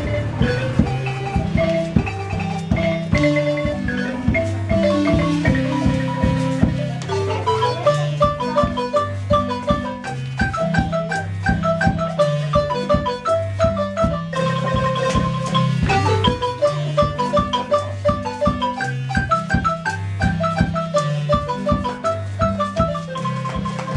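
Guatemalan marimba music: quick melodic runs of short struck notes over a steadily repeating bass pattern.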